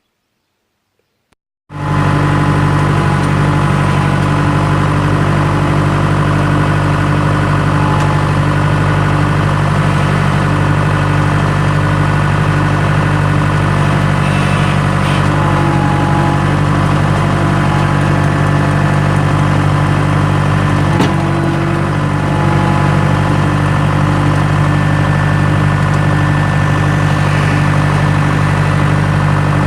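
Near silence for about two seconds, then a skid steer's engine running steadily at a constant speed.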